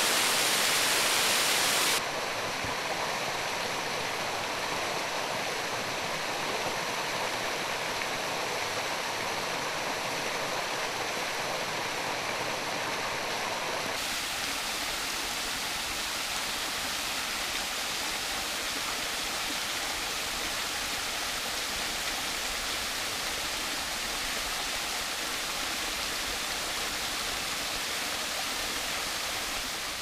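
Steady rush of a mountain waterfall spilling over rock. The sound turns a little softer about two seconds in and deeper from about halfway through.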